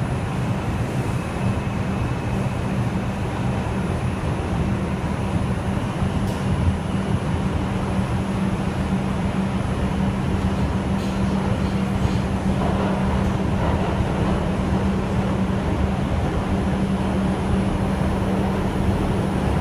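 Inside an R142 subway car running between stations: a steady rumble of wheels on the rails with a constant low hum, and a few light clicks.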